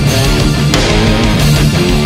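Loud background rock music with guitar, bass and a steady drum beat.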